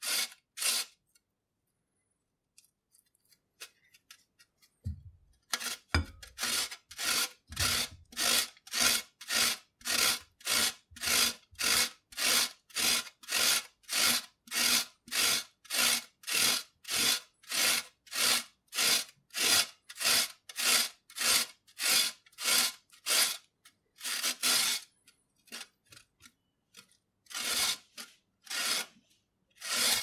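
A carrot grated by hand on a stainless steel box grater: a steady run of rasping strokes, about two a second. The strokes stop for a few seconds near the start and grow sparser near the end.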